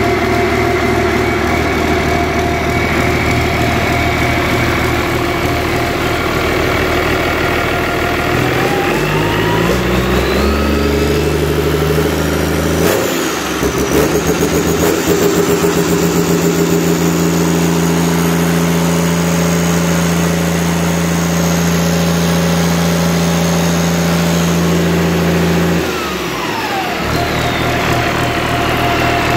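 Yanmar 6CXL-DTGK six-cylinder diesel engine idling, then revved up about a third of the way in, held at higher speed for about twelve seconds, and let back down to idle near the end. A whine rises and falls with the revs.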